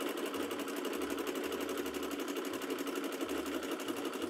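Home sewing machine running steadily at speed, sewing a zigzag stitch, its needle going in a rapid, even rhythm.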